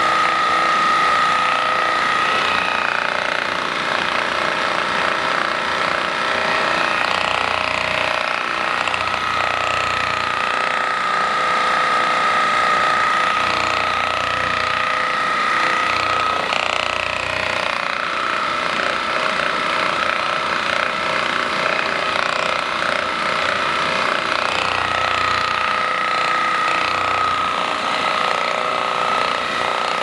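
Handheld percussive massage gun running against a person's back: a steady motor whine over rapid hammering pulses, the whine fading in and out at times.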